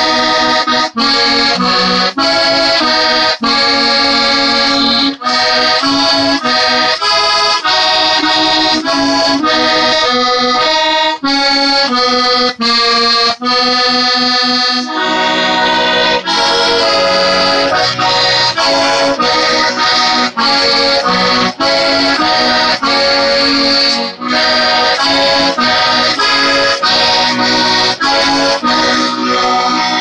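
Squeeze box playing a lively tune, with chords and melody notes changing quickly and a few very brief breaks.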